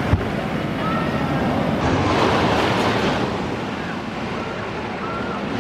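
Thunderhead, a GCI wooden roller coaster, with its train rumbling along the wooden track. The roar swells for about a second midway as the train passes closest.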